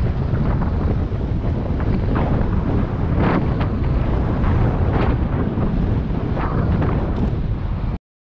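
Wind buffeting a cyclist's action-camera microphone while riding, a steady low rumble with a few brief rushes of hiss. The sound cuts off abruptly near the end.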